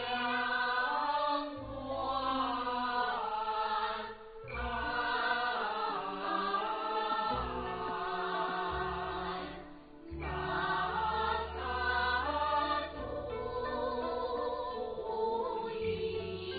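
Kunqu opera stage music: a chorus singing a slow, drawn-out melody over an orchestral accompaniment, in phrases that break briefly about four and ten seconds in.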